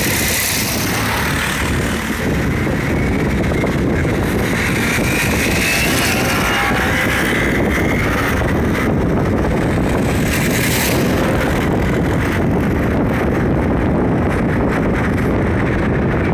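Steady rumble of engine and tyre noise heard from inside a moving car in traffic. A higher-pitched motorcycle engine rises and fades as a motorcycle rides close by, about midway through.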